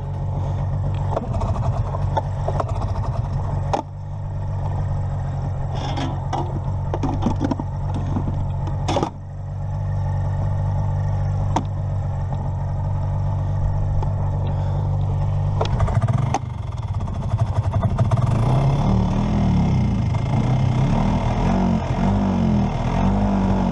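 Vintage two-stroke snowmobile engine running steadily, dropping briefly twice, with a few clattering knocks near the middle. Over the last several seconds its note turns uneven and wavering.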